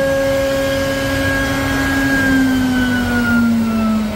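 CNC wood-carving machine's spindle motor whining at speed, its pitch falling steadily from about halfway through as the spindle winds down with the carving job finished.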